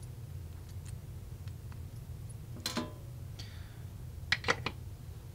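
Light clicks and taps from a small circuit board being handled over a workbench, with a sharper click a little under three seconds in and a quick run of clicks near the end, over a steady low hum.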